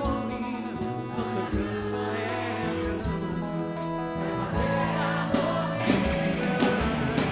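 Music with singing: a slow song with held notes, sung vocal lines and light percussion.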